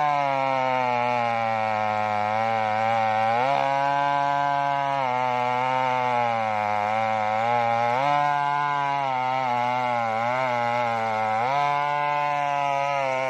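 Stihl two-stroke chainsaw ripping lengthwise through a sengon log. The engine note sags as the chain bogs in the cut and picks back up twice, about three and a half seconds in and again near the end.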